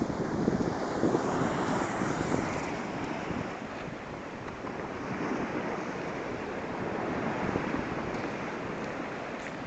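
Strong sea waves breaking, a steady wash of surf, with wind buffeting the microphone, gustier in the first few seconds.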